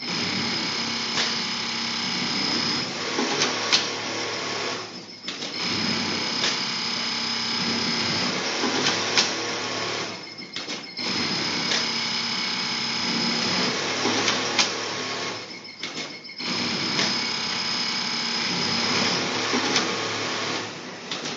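Industrial pattern sewing machine sewing a pocket: four stitching runs of about five seconds each, with a high steady whine and rapid needle chatter. Short pauses with sharp clicks separate the runs.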